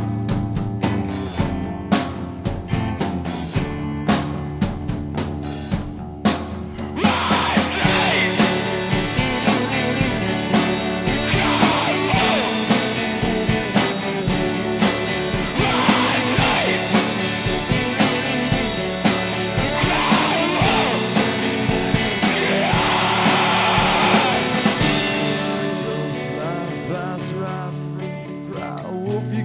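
Indie rock song: a sparse passage of drum hits over a low bass line, then about seven seconds in the full band comes in louder and fuller, thinning out again near the end.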